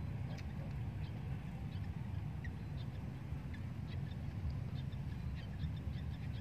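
Wind rumbling on the microphone, with scattered short bird chirps over it.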